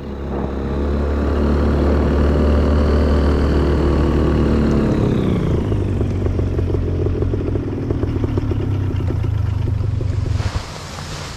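Tandem paramotor trike's engine and propeller running at high power. It is throttled back about halfway through with a falling pitch, runs lower for a few seconds, then cuts off near the end, leaving wind noise.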